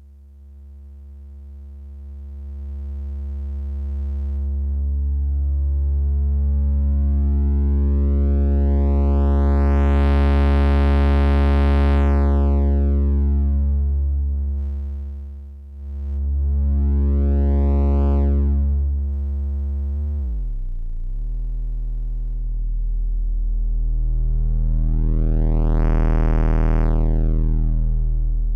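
Cre8audio Capt'n Big-O analog oscillator holding one low note through its wavefolder as the fold is swept up and down. The tone swells from a smooth hum into a bright, harmonic-rich sound and back, three times. About two-thirds of the way through, the pitch dips briefly and settles a little lower.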